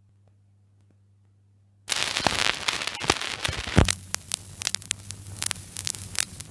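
Surface noise of a 78 rpm acetate disc being played: a faint low hum, then about two seconds in a sudden burst of loud crackle and sharp pops, with one loud pop near four seconds in, settling into steadier crackle and hum.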